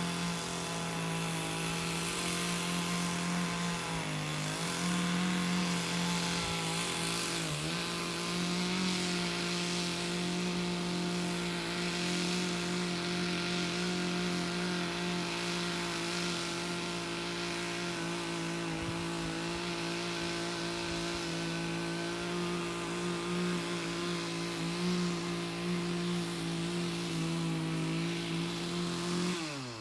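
Chainsaw running at high revs, held steady as in a cut through a log, its pitch dipping briefly twice in the first third. Near the end the throttle is released and the engine winds down.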